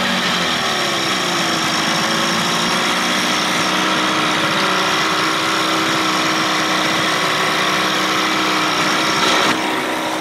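Old Johnson two-stroke outboard motor running steadily at a fast idle. Its pitch rises a little about a second in, then holds, and it eases off slightly near the end.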